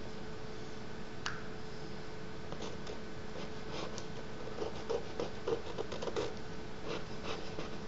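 A thin wooden stick dipped in ink scratching and tapping on paper in a series of short strokes, over a faint steady hum. There is a sharp click about a second in.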